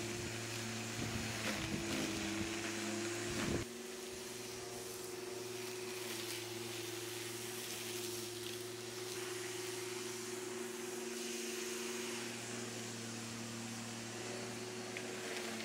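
Corded electric rotary lawnmower running with a steady motor hum while it cuts long grass. Wind buffets the microphone for the first few seconds, then stops abruptly, leaving the hum alone.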